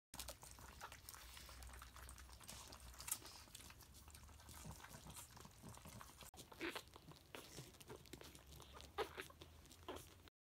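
Faint eating noises of Japanese Chin puppies at steel bowls: small scattered clicks and chewing ticks, thicker in the second half, over a low steady room hum.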